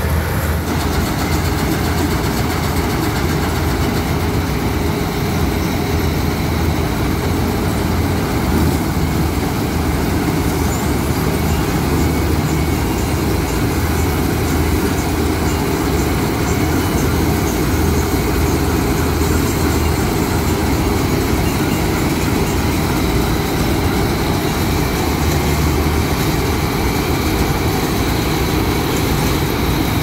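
Crop Star NSG 930 combine harvester running steadily while it cuts and threshes a standing rice crop: a continuous, loud drone of engine and machinery.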